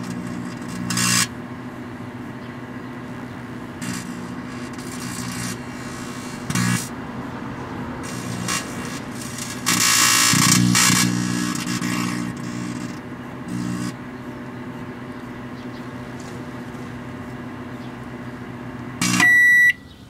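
Danby microwave oven running with a steady hum while the metal pan scrubber inside sparks and arcs in bursts, the biggest about ten seconds in. Near the end the oven shuts off and its end-of-cycle beep sounds.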